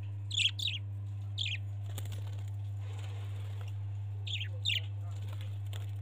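Budgerigars giving short, falling chirps: a pair about half a second in, one more a second later, and another pair near the end, over a steady low hum.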